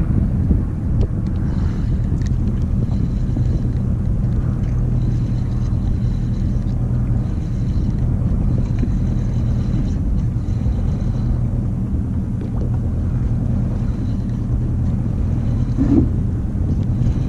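Boat's outboard engine idling steadily, a low hum under wind buffeting the microphone.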